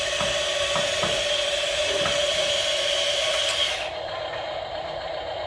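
Small electric motor of a radio-controlled construction model whining steadily with a hiss and a few sharp clicks; about four seconds in, the hiss cuts off suddenly, leaving a quieter, lower whine.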